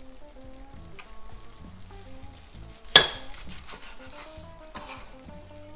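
A pan of chicken in cream sauce sizzling faintly, with one sharp metallic clink about three seconds in as a utensil strikes the pan, over soft background music.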